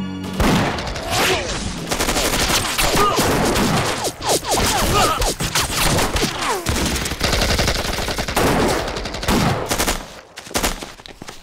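Gunfire in a firefight: many rifle shots fired in rapid, overlapping succession, which thins out and drops away about ten seconds in.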